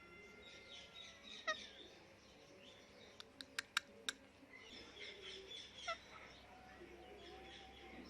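Pet parrots chirping softly, with two sharp calls that sweep steeply down in pitch, one about a second and a half in and one near six seconds. Around the middle comes a quick run of five sharp clicks.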